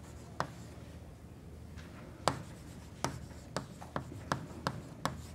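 Chalk writing on a blackboard: a string of sharp, irregular taps and short scratches as the chalk strikes and moves across the board, coming more often in the second half.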